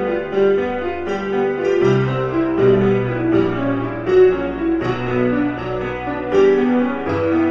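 Background piano music: a melody of steady notes over a bass line that moves every second or so.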